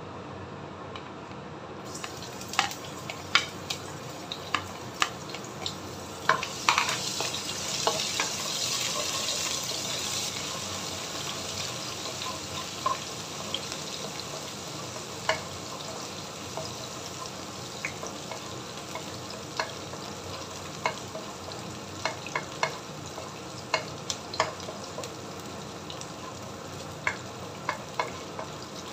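Chopped red onion frying in hot oil in a nonstick wok. A loud sizzle rises about six seconds in as it goes into the oil, then settles into steadier sizzling, with frequent taps and scrapes of a wooden spoon stirring it.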